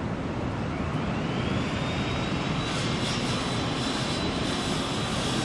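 Steady rushing machine noise with a high whine that rises about a second in and then holds steady.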